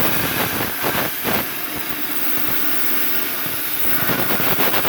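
CNC plasma torch cutting 4 mm steel plate: a steady, loud hiss with irregular crackling.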